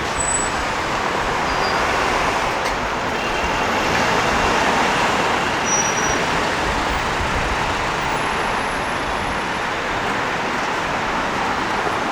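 City street traffic: a steady wash of road noise from passing vehicles, swelling a little louder about four to five seconds in, with a few faint short high squeaks.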